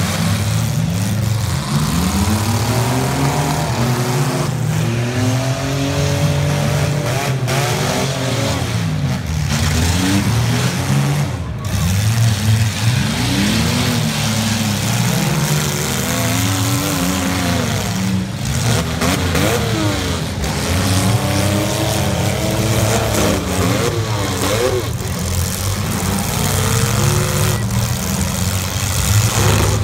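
Demolition derby cars' engines revving up and down again and again, several at once, with their pitches overlapping.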